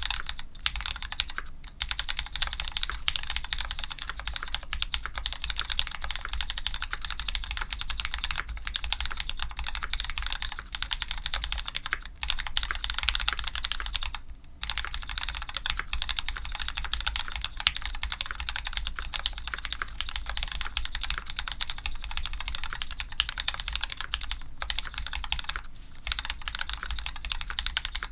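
Fast continuous typing on a custom mechanical keyboard with lubed Cherry Retooled Black linear switches, GMK keycaps and an aluminium plate. The keystrokes pause briefly a few times.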